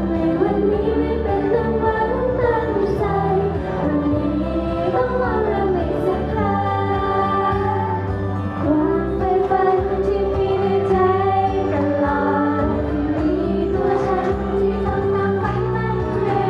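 Young women singing a pop song live into handheld microphones over backing music played through the PA.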